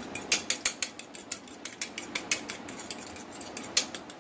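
A fork beating an egg in a ceramic bowl, its tines clicking against the bowl in quick runs of sharp taps.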